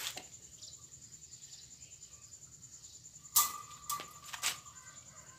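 Sharp metallic clicks of wire against a wire cat cage, three in quick succession about three and a half seconds in, each with a brief ring. A steady, rapidly pulsing high insect trill carries on underneath.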